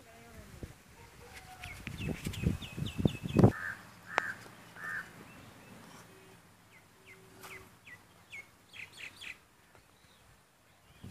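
Small birds chirping in quick runs of short downward notes, twice. About two seconds in, a cluster of low thuds and rumble is the loudest sound for a second or so.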